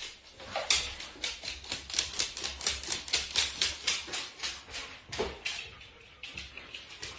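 A dog's claws clicking on a hard wooden floor as it walks: a quick run of sharp taps, about three or four a second, that grows quieter about two-thirds of the way in.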